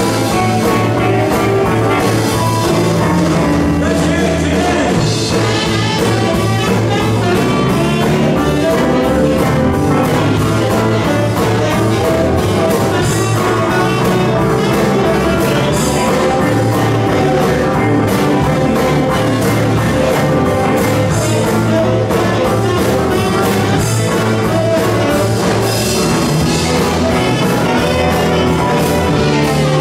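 Live band playing through stage speakers: electric guitars, bass, keyboards, saxophone and a drum kit keeping a steady beat.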